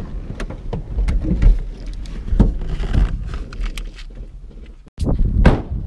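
Rustling, knocks and thumps of people climbing out of a car, over a low rumble of the phone being handled, with a brief break about five seconds in.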